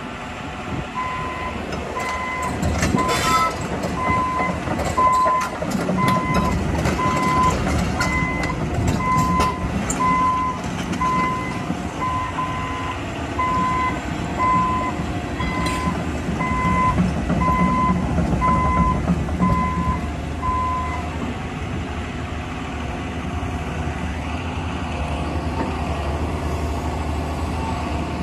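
John Deere 200D excavator's diesel engine running as the machine moves, its travel alarm beeping about once a second for some twenty seconds and then stopping. A couple of sharp metallic clanks sound along the way.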